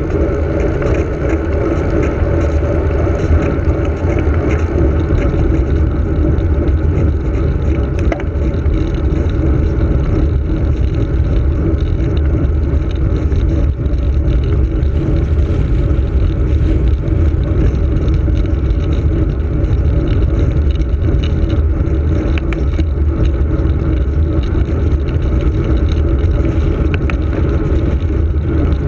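Steady rush of wind buffeting the microphone of a handlebar-mounted camera on a bicycle descending at speed, mixed with the hum of tyres on tarmac.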